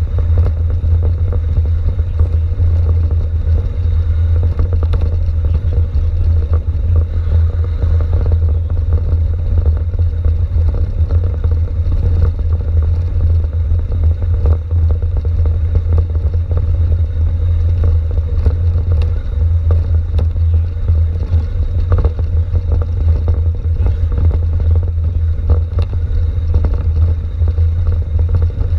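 Mountain bike rolling downhill over cobblestones, picked up through the handlebars: a heavy steady low rumble with constant clattering and rattling from the rough stones.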